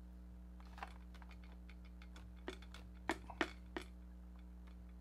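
Light, irregular plastic clicks and taps from a 10-inch vinyl Funko Pop Darth Vader bobblehead being handled while its head bobbles, with a few louder knocks about three seconds in. A steady low hum runs underneath.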